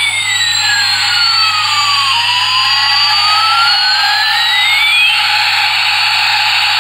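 Battery-powered toy airliner's electronic jet-engine sound effect: a steady rushing noise with a whistle that glides down for about two seconds and then back up, fading out about five seconds in.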